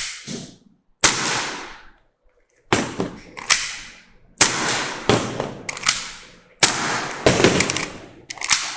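Kizuna Works BSK43 airsoft pistol firing a string of about nine sharp shots. They come singly or in quick pairs about a second apart, each with a short echoing tail.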